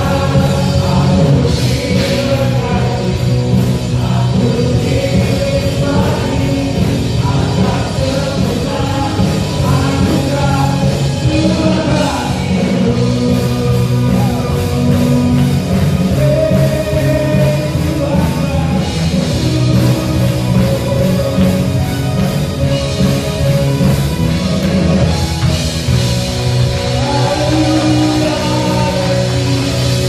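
Live worship band playing a praise song, with vocalists singing in Indonesian over guitars, keyboards and drums.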